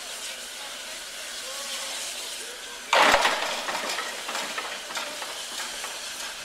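Steam locomotive hissing steam, with a sudden loud blast of steam about three seconds in that fades away through a few uneven puffs.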